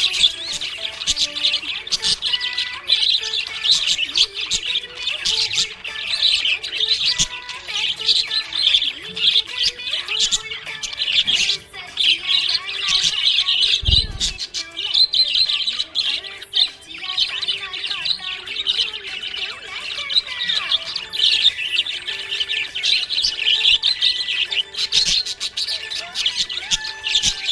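Budgerigars chirping and warbling in a dense, continuous high-pitched chatter, with a single low thump about halfway through.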